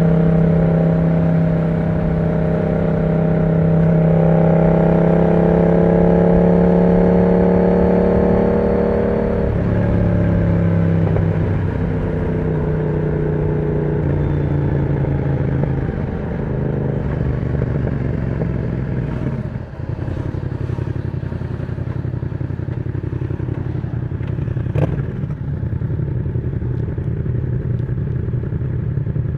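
Yamaha MT-07's parallel-twin engine running through an aftermarket exhaust with the dB killer removed. The note holds steady, falls in steps about ten and fourteen seconds in, and then runs lower. A single sharp click comes near the end.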